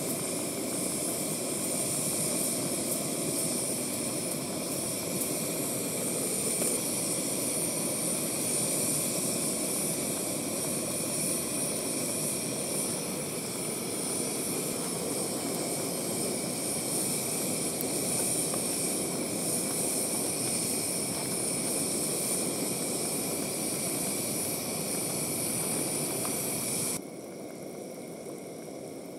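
A pan of chicken broth boiling hard over the heat: a steady rushing roar, with a high steady drone over it. Both drop off abruptly near the end.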